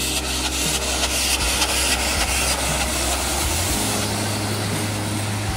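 FS class 740 2-8-0 steam locomotive working past under steam: a quick, even rhythm of exhaust chuffs over a steady hiss and low rumble. Near the end the chuffs fade into hiss and the rumble of the train rolling by.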